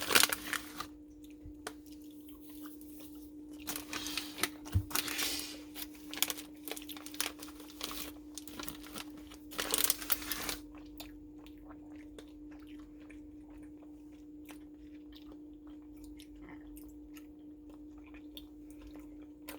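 Close-up chewing and crunching of sugar-coated sour candy cubes, in three bouts in roughly the first half, then only faint mouth clicks. A steady low hum runs underneath.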